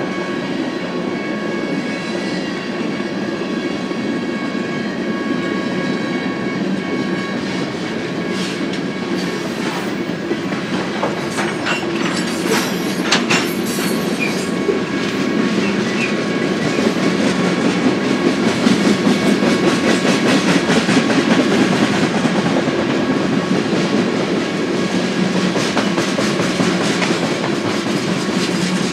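Freight cars of a passing BNSF manifest train rolling by, wheels clicking over the rail joints, with a steady high-pitched ring from the wheels. A short cluster of metallic clanks comes about twelve seconds in, and the rumble swells a little past the middle.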